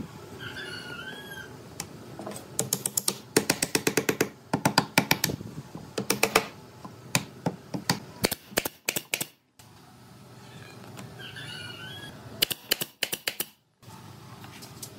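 Pneumatic nail gun firing into pine chair rails, several shots a second in quick runs, each a sharp clack.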